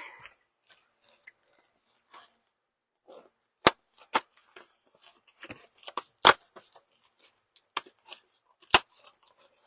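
Packaging being handled while unpacking a box: faint rustling of packing paper broken by about half a dozen sharp crackles and snaps.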